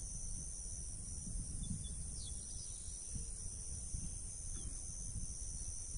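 Wind rumbling on the microphone over a steady, high-pitched trill of crickets.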